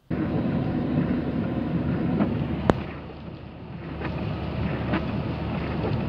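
Steady road and engine noise of a car driving, heard from inside the cabin, with one sharp click a little under halfway through.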